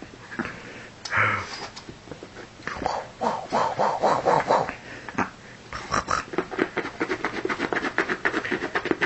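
A dog at close range making a series of short vocal and breathing noises. About six seconds in they turn into a quick, even run of pulses, several a second.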